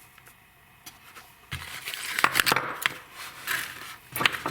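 Hand work on a small mower engine: a quiet start, then a run of sharp clicks, knocks and scrapes of parts and tools being handled, the loudest near the end.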